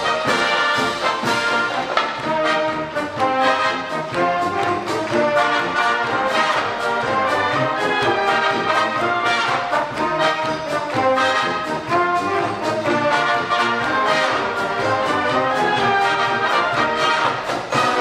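Marching band playing live: trumpets, trombones and sousaphones carry the tune over the strokes of marching drums.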